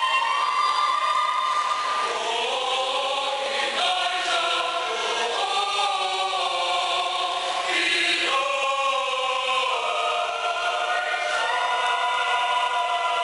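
Mixed choir of men's and women's voices singing unaccompanied, holding sustained chords that shift every second or two, with brief hissing consonants now and then.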